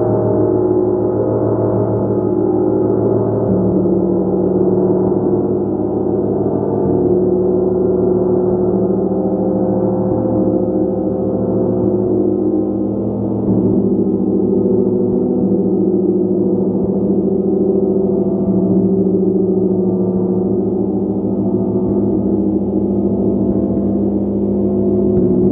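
A gong being played continuously: a dense, sustained wash of many overlapping ringing tones, kept swelling by rapid repeated soft strikes, with no pauses.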